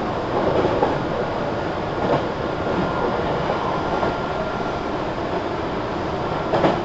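Meitetsu 3300 series electric train (set 3312F) under way: a steady rumble of wheels on rail with a faint whine over it for a few seconds, and a louder knock near the end.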